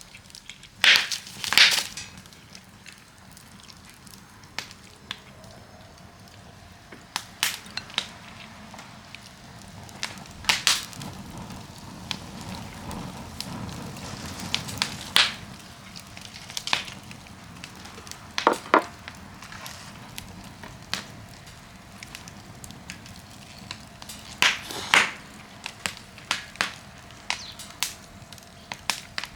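Wood campfire burning, crackling with sharp, irregular pops over a low steady hiss; a few louder snaps stand out, two close together near the start.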